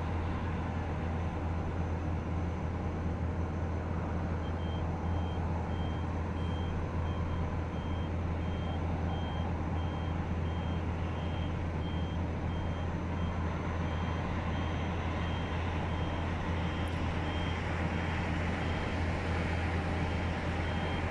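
Steady low diesel engine hum of heavy earthmoving machinery. About four seconds in, a machine's reversing alarm starts beeping, about twice a second, and keeps on.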